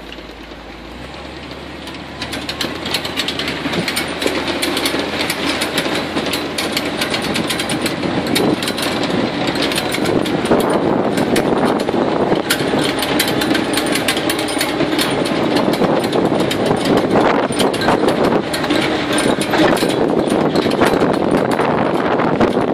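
Swamp buggy running and pulling away along a rough sandy track, growing louder over the first few seconds. The open vehicle rattles and knocks steadily as it jolts over the ruts.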